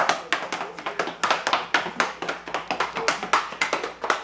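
Two small children walking across a ceramic tile floor in oversized adult women's shoes, the loose heels and soles clacking on the tiles in quick, uneven taps, several a second.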